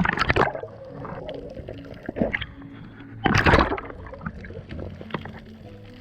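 Water sloshing and gurgling, with two loud splashing rushes about three seconds apart.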